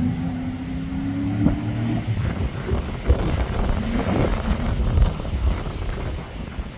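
Off-road racing buggy's engine pulling hard, its note rising for about the first two seconds, then turning rougher and more distant as the buggy drives away across the field. Gusts of wind thump on the microphone.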